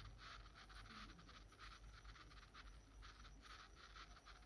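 Near silence: faint room tone with a light, irregular crackle.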